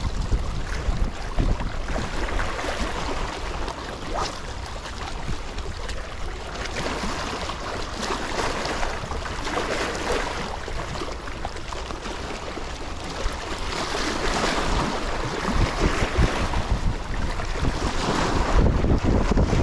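Wind buffeting the microphone with a heavy low rumble, over small waves washing and splashing against shoreline rocks; the gusts grow louder near the end.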